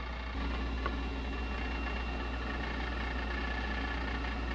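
Steady machine hum, a motor running with no load and no grinding, with a faint click about a second in.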